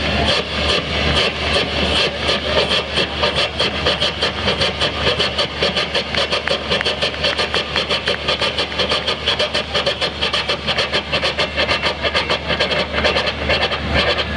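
A man imitating a coal-fired steam locomotive starting up with his mouth, amplified through a microphone: rhythmic chuffing that begins slowly and quickens to several chuffs a second as the engine gets going.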